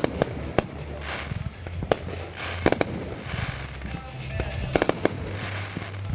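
Fireworks going off: sharp bangs several times, some in quick pairs, over a continuous background of crackling and hiss.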